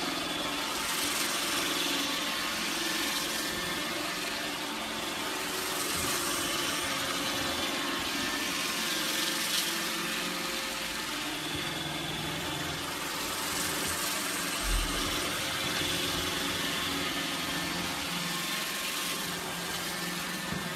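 Robot vacuum cleaner running: a steady whirring hum of its motor and brushes. A brief low thump comes about fifteen seconds in.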